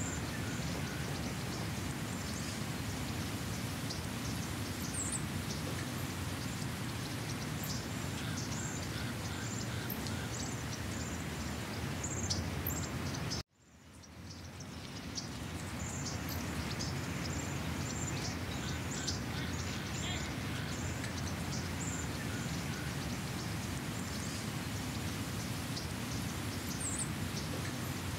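Outdoor ambience: many small birds chirping over a steady rushing background noise. The sound cuts out abruptly about halfway through and fades back in.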